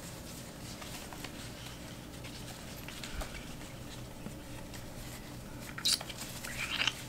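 Faint rustling and handling of a cloth headband being tied behind the head, over a low steady room hum. A couple of brief louder rustles come near the end.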